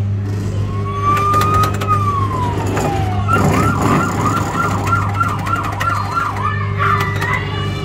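Fire-truck kiddie ride's electronic siren sound effect from its speaker, set off by its dashboard buttons: one slow wail that rises and then falls, followed by a fast warbling siren at about three cycles a second. A few sharp clicks and a steady low hum run under it.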